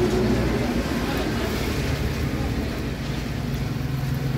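A steady low motor rumble with background noise, with no distinct knocks or clinks standing out.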